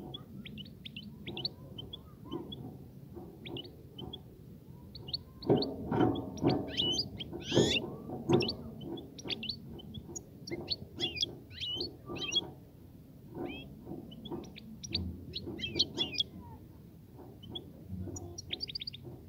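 European goldfinch singing: a fast, twittering run of short chirps and trills, loudest from about six to eight and a half seconds in.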